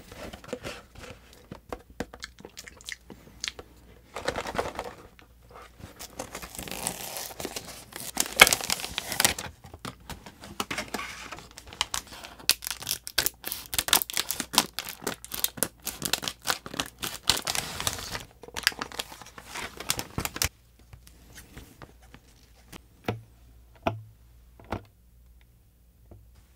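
Popin' Cookin' hamburger kit packaging being torn open and crinkled, its plastic packets cut with scissors, in a dense run of rustling and crackling that stops about 20 seconds in. After that, only sparse light clicks and a few soft low thumps.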